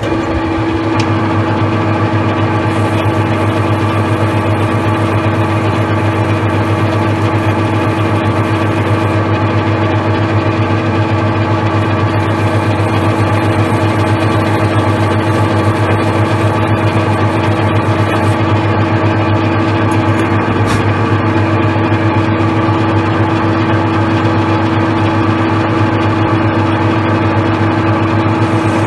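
Metal lathe running steadily with a constant machine hum, its spindle turning a steel wheel nut in the chuck while a carbide insert tool faces the nut's wrong taper flat.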